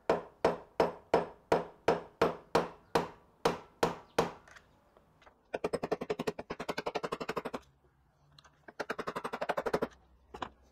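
Hammer blows on a steel drift rod driven down through an old drill press chuck, about three strikes a second for some four seconds, knocking at a rusted arbor taper that stays stuck in the chuck. Then two bursts of rapid rattling clicks and a last single knock near the end.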